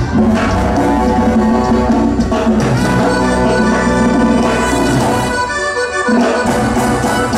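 Live band music playing loudly; the bass and drums drop out for about a second around five seconds in, then come back.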